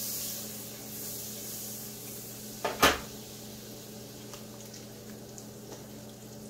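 Cookware handled on a gas stove: a faint sizzle of butter in a hot pan fades over the first second, then one sharp clank of a pot knocking against the stove about three seconds in. Light clicks and wrapper rustle follow as a block of butter is unwrapped and cut.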